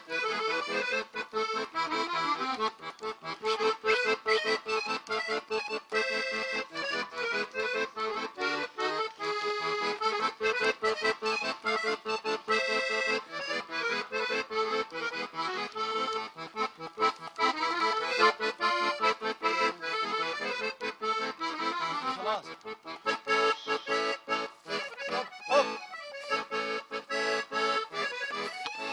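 Piano accordion being played: a tune of many notes in quick succession over held chords.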